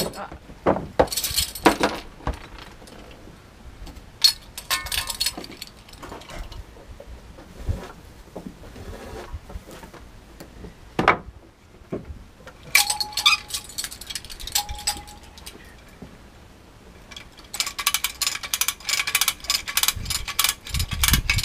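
Metal chain and hook of a hand chain hoist clinking and rattling as it is rigged, then, from about three-quarters of the way through, a rapid, even run of ratchet clicks as the hoist is worked.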